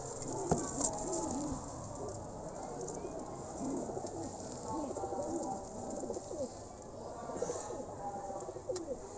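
Several domestic pigeons cooing, their low coos overlapping throughout. A single sharp tap about half a second in.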